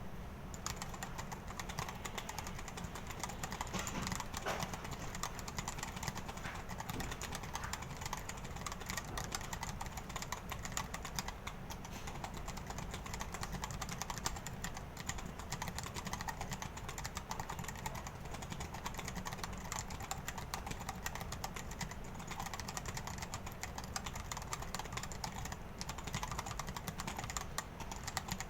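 Fast, continuous typing on a Dactyl Manuform split mechanical keyboard with Hako Royal True switches: a dense, unbroken stream of key clicks and clacks at about 88 words per minute.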